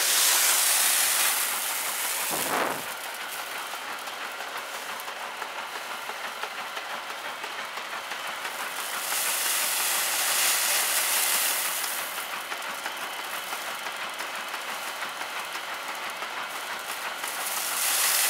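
An old grain threshing machine running: a steady rushing clatter from its drum that swells louder for a few seconds at a time, about three times, as bunches of grain stalks are fed in.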